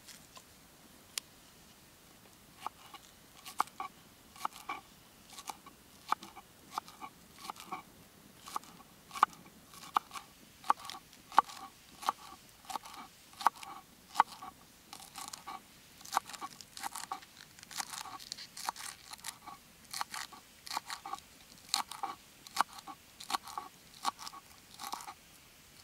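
Kitchen knife cutting green onions on a wooden cutting board: a steady run of crisp, crunchy cuts about one every half second, starting a couple of seconds in.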